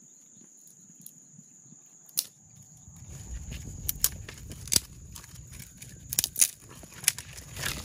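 A scattered series of sharp clicks and light knocks, thickest and loudest past the middle, over a low rumble that comes in about three seconds in, with a steady high-pitched tone throughout.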